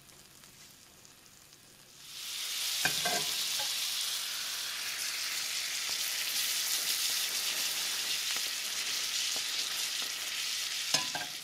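Butter sizzling in a skillet under a cheese-filled bolillo sandwich as it toasts. The sizzle is faint at first and turns loud and steady about two seconds in, with a brief knock just after.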